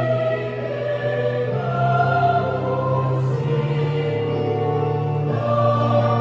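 Youth choir singing in parts, with sustained held chords that change every few seconds over a steady low bass note.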